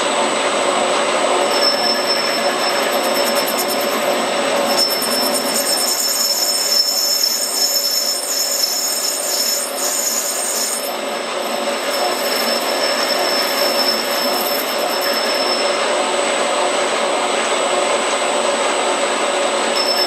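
Metal lathe turning a brass workpiece while a cutting tool feeds into it: a steady, noisy cutting sound with a high squealing whine on top. Extra high-pitched ringing joins in from about five seconds in to about eleven seconds in.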